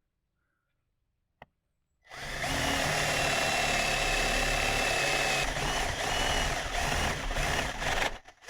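Electric drill boring a 1-inch hole in a wooden door, starting about two seconds in, running steadily with a high whine for about six seconds, then stopping near the end. A single short click comes about a second before the drill starts.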